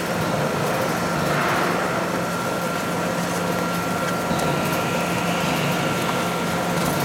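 OMEGA spiral dough mixer running, kneading a large batch of dough: a steady motor hum with a faint, constant high whine.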